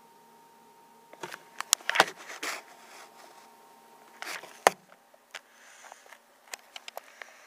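Handling noise from a hand-held camera being moved: scattered clicks and taps with short rubbing swishes, the sharpest about 2 seconds in and again near 5 seconds, over a faint steady hum.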